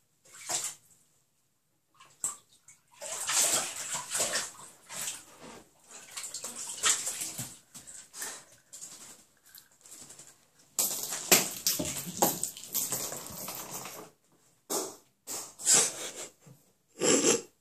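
Bobcat splashing and sloshing water in a bathtub: irregular bursts of splashing, with the loudest, longest run of noise about two thirds of the way through.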